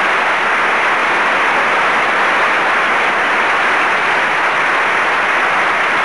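Large audience applauding, a dense, steady clapping with no music or speech over it.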